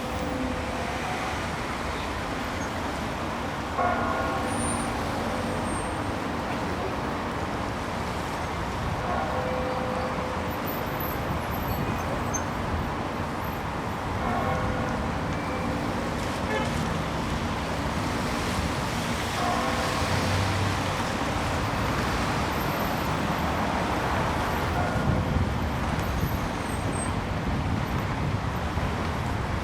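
Bells tolling, a ringing stroke about every five seconds, over the steady noise of passing road traffic.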